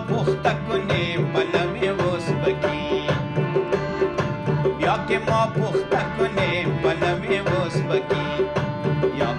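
Background music: an Afghan song with a steady percussion beat.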